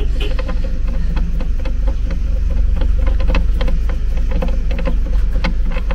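Steady low mechanical rumble, with a faint steady hum above it, and many small clicks and knocks scattered through it.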